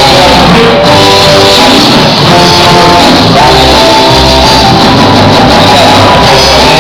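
Loud rock and roll music with singing.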